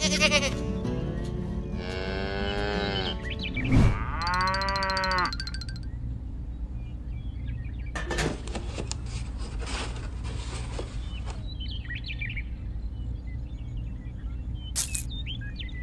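Background music with a cow mooing twice, two long bending calls about two and four seconds in. A hiss follows about eight seconds in and lasts some three seconds.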